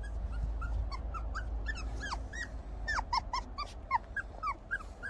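A litter of young black Labrador Retriever puppies whimpering and squeaking: many short high-pitched whines, several a second, each rising and falling in pitch. The calls grow busier about two seconds in.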